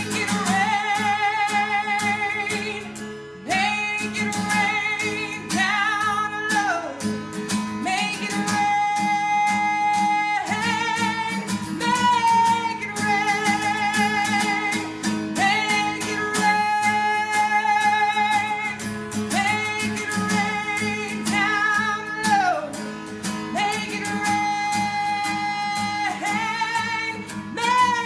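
Acoustic guitar strummed under a melody of long held notes with vibrato, each lasting a few seconds.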